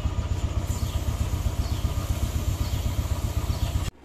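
Motorcycle engine idling with a steady, rapid low beat, cut off suddenly near the end.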